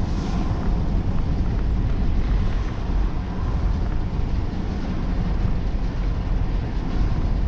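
Steady low road noise inside a moving car's cabin: tyres on the road and the engine running at cruising speed.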